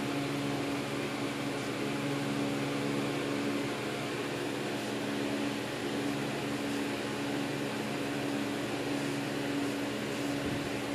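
Steady mechanical hum: a constant low drone with an even hiss behind it, unchanging throughout.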